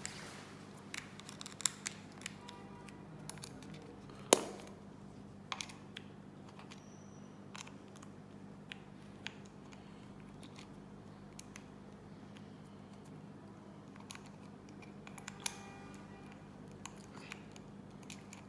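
Small screwdriver scraping and clicking against the screw and hard rubber-and-plastic back cover of a rugged phone as the battery cover screw is tightened: scattered light clicks and short squeaks, with one sharp click about four seconds in.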